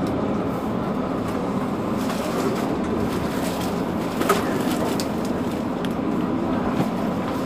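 Mercedes-Benz Citaro C2 city bus engine idling, a steady hum, with one short sharp click a little past the middle.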